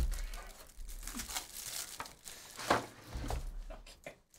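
Crinkling and tearing of a trading-card hobby box's plastic wrap and its wrapped card packs as they are pulled out of the box and set down. There is a dull knock at the start and sharp crackles about a second in and near three seconds in.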